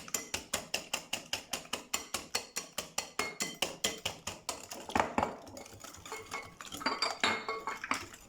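Eggs and sugar being beaten in a mixing bowl, the whisk clinking against the bowl about five times a second. The clinking stops after about four and a half seconds, followed by a few irregular knocks.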